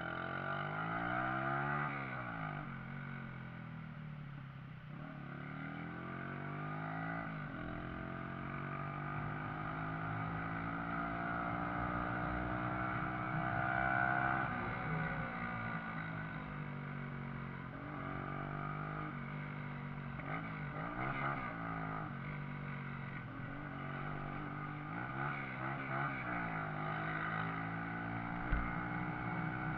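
Shineray Viúva Negra motorcycle engine running under way, its pitch climbing and dropping again and again as the bike accelerates and eases off. A short sharp knock near the end.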